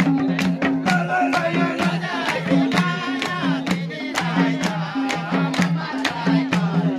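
Live Nepali dohori folk music: a drum keeps a quick steady beat with alternating low and higher pitched strokes, and a voice sings over it for part of the time.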